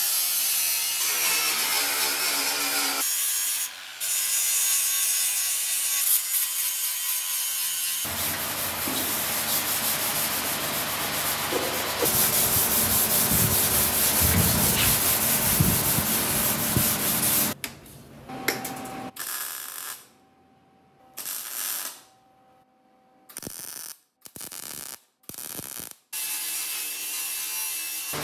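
Metal-prep work on a VW Karmann Ghia's steel floor pan: a cordless angle grinder running against the steel and an abrasive scuff pad rubbed by hand over the pan. The sound changes abruptly several times, and about two-thirds of the way through it comes in short bursts with near-quiet gaps between them.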